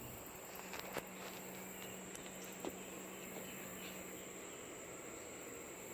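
Steady, high-pitched insect chorus of trilling crickets or similar insects, with a couple of faint clicks about a second in.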